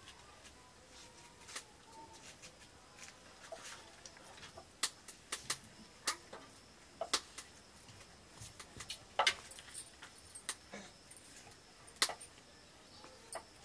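Stainless-steel ladle and plates clinking and tapping irregularly as curry and rice are served from a steel pot, with a few sharper, ringing clinks.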